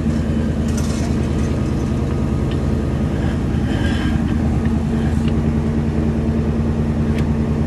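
Water-well drilling rig's engine running steadily at an even pulsing idle, with a few faint clicks and knocks from pipe-handling gear about a second in, around the middle, and near the end.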